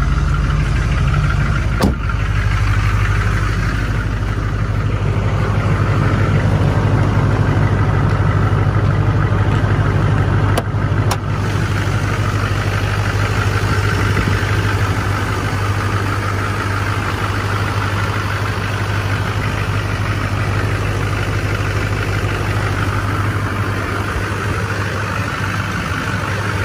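2004 GMC Sierra dually's 6.6-litre Duramax diesel V8 idling steadily, still cold from its glow-plug cold start. A sharp knock sounds about two seconds in, and two more around eleven seconds.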